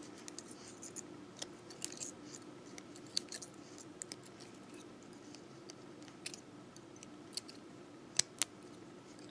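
Round-nose pliers working fine beading wire: faint, irregular small clicks and scratches as the wire ends are gripped and twisted together, with two sharper clicks near the end, over a faint steady hum.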